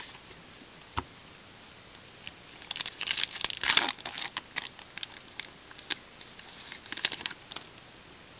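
Trading card pack wrapper being torn open and crinkled, the loudest crackling about three to four seconds in, then scattered sharper crinkles and clicks as the cards are handled.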